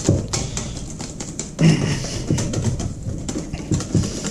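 Wire whisk beating thick pancake batter in a stainless steel bowl: quick, uneven clicking and scraping strokes of the wires against the metal, with a louder knock about a second and a half in.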